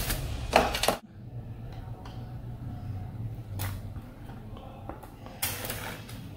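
Hands handling a laptop on a desk: a sharp knock just over half a second in, then the noise drops suddenly to a low hum with a couple of brief brushing taps.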